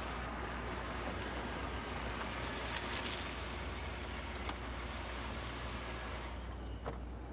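Steady vehicle running noise, a low rumble under a continuous hiss, with a couple of faint clicks about four and a half and seven seconds in.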